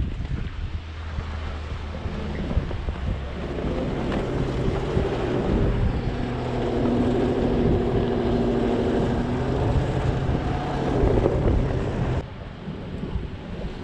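Off-road vehicle's engine working under load, its revs climbing and held high for several seconds mid-way, then backed off abruptly near the end.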